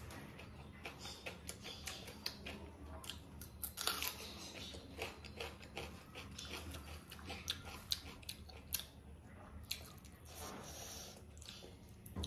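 A person chewing food close to the microphone during a mukbang, with many small irregular clicks of mouth and food sounds.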